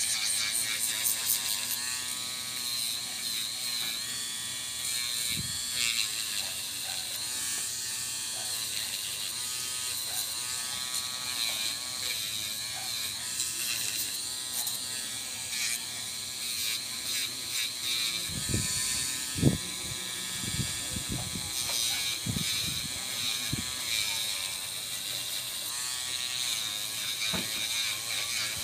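Electric nail drill with a sanding band running and grinding against a soft gel nail tip: a steady motor whine that wavers in pitch as it presses on the nail, over a gritty sanding hiss. A few low knocks come about two thirds of the way through.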